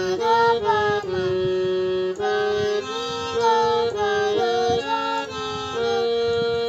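Harmonium playing a simple melody of held notes, one after another, while a child sings along.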